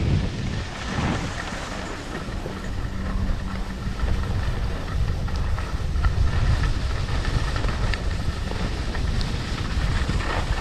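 Wind rushing over the microphone during a fast downhill ski run, with skis hissing and scraping over a fast, groomed snow surface.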